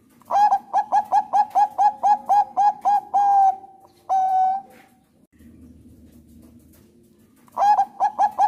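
Thai-bred zebra dove (perkutut bangkok) singing: a fast run of about a dozen short clipped coos, about four a second, ending in two longer held notes. A pause follows, and a second run starts near the end.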